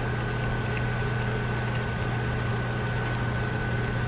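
A steady mechanical hum with a thin, faint high whine over a light hiss, unchanging throughout.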